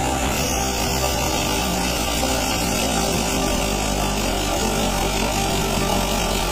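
Farm tractor's diesel engine running steadily as the tractor drives slowly forward.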